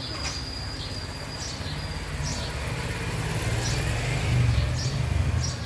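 Short high bird chirps about once a second over a low, steady rumble that swells a few seconds in. A thin, steady high whistle runs through the first two seconds.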